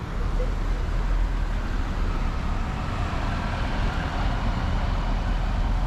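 Steady road traffic noise of a busy city avenue, vehicles running past continuously with a low rumble.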